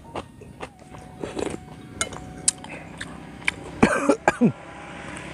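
A man eating with a spoon, small chewing and mouth clicks, then three quick, loud coughs about four seconds in.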